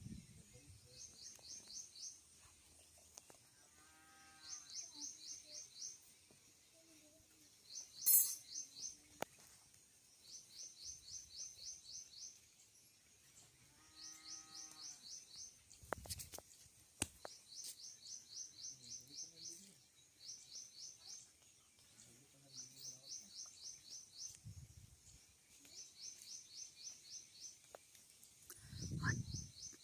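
Faint outdoor sounds: a cow moos twice, and a high chirp in quick trains of pulses repeats every couple of seconds throughout. A sharp click comes about eight seconds in, and a low thump comes near the end.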